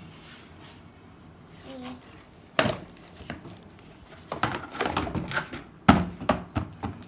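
Handling sounds of toy pieces and packaging on a hard surface: a sharp knock about two and a half seconds in, then a run of small clicks and taps, and another sharp knock near the end.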